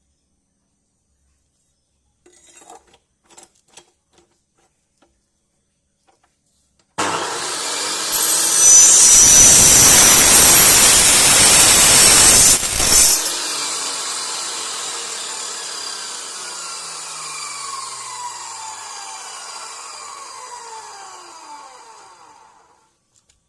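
An electric metal-cutting power tool starts up and cuts loudly through HSS steel for about five seconds. It is then switched off, and the motor winds down, its whine falling in pitch over about ten seconds. A few faint clicks come before it starts.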